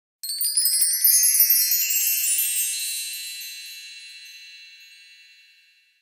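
A bright tinkling chime effect. A quick flurry of high tinkles in the first two seconds gives way to a shimmering ring that slowly fades out.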